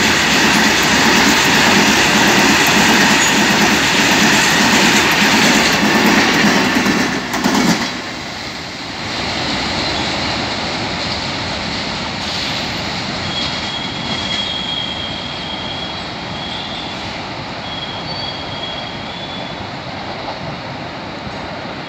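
Freight train of hopper wagons rolling past close by, a loud steady rush of wheels on rail. About seven seconds in the sound drops suddenly to a quieter rumble of the train running away, with a thin high wheel squeal coming and going in the later part.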